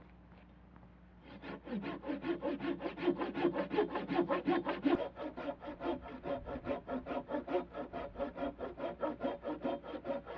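Hand saw cutting through wood in quick, even back-and-forth strokes, about four to five a second. The sawing starts about a second in and runs on steadily.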